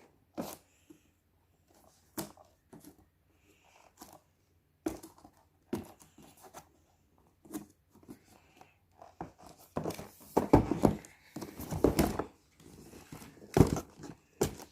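Toy packaging being pulled and torn open by hand: scattered rustles and small knocks at first, then a denser, louder stretch of tearing and crinkling from about ten seconds in, the box being hard to open.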